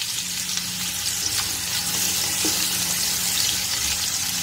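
Freshly sliced red onions sizzling steadily in hot ghee in a large aluminium pot, being stirred with a wooden spatula at the start of frying.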